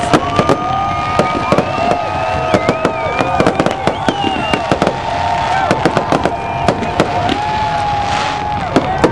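Fireworks going off in a rapid, continuous barrage of bangs and crackles, with people in the crowd whooping and yelling over it. A brief hiss comes about eight seconds in.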